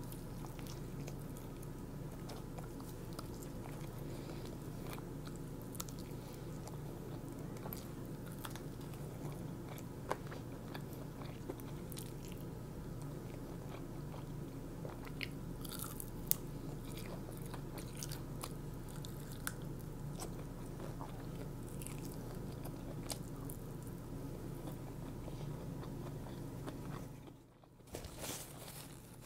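Someone eating crispy fried chicken: biting and chewing, with scattered sharp crunches over a steady low hum. The sound drops out briefly near the end.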